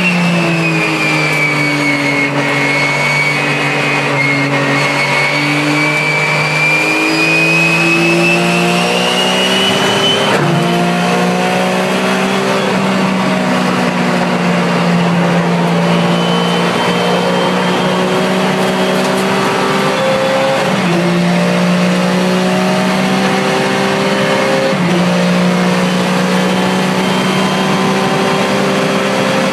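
Porsche 996 Cup race car's flat-six engine heard from inside the cabin at speed, its pitch climbing and then stepping abruptly several times through gear changes. A high whine dips and rises again over the first ten seconds.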